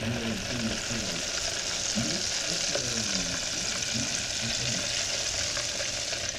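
Battered fish pieces deep-frying in hot oil in an electric deep fryer: a steady, hissing sizzle of bubbling oil.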